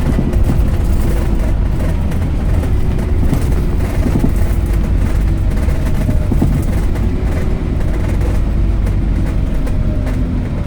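Scania K270UB Omnilink bus's five-cylinder diesel engine running with a steady heavy rumble, faint tones shifting slowly in pitch as the bus drives along.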